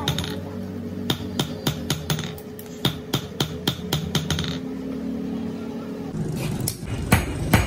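Hand hammer striking hot steel on an anvil in a quick, even rhythm of about three blows a second, stopping after about four and a half seconds. A few more strikes come near the end over a rise in steady noise.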